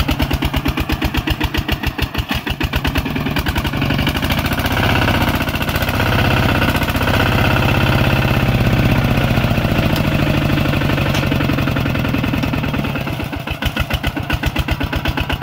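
Kubota RT140 walking tractor's single-cylinder diesel engine chugging, revving up a few seconds in and holding higher revs while it strains against a load with its wheels sunk in deep mud, then dropping back to a slower chug near the end.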